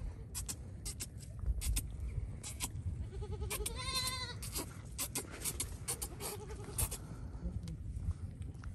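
A goat bleats once about three and a half seconds in, a single wavering call lasting about a second, amid scattered short clicks and rustles.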